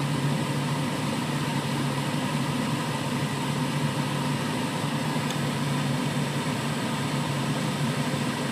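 Jeep Cherokee XJ's air conditioning running with the engine idling: a steady, unbroken droning hum. The noise comes from an overcharged A/C system, overfilled with refrigerant.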